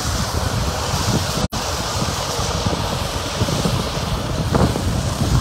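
Steady road-traffic noise with wind rumbling on the microphone. The sound cuts out for an instant about a second and a half in.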